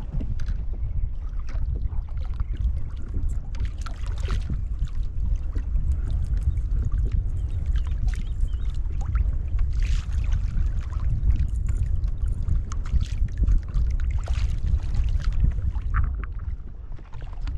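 Wind rumbling on the microphone, with scattered small clicks and rustles as a fish and fishing gear are handled in the kayak.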